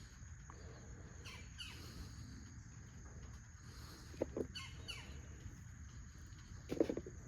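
Faint birds chirping outdoors, a few quick downward-sweeping calls, over a low steady background. There is a short sound about four seconds in and a louder brief one near the end.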